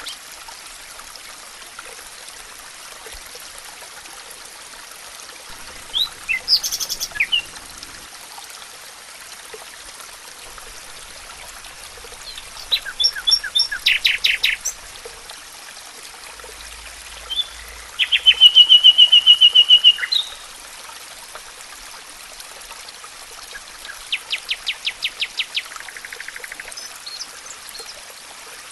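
Songbirds singing in short separate phrases every few seconds over the steady rush of a stream. The loudest phrase, about two-thirds of the way through, is a rapid even trill held on one pitch for about two seconds.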